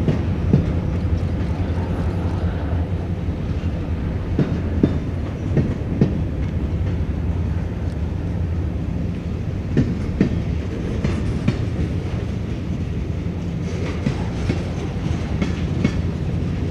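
Freight cars of a mixed manifest train rolling past at steady speed: a continuous low rumble, with pairs of sharp clicks every few seconds as the wheel trucks pass over rail joints.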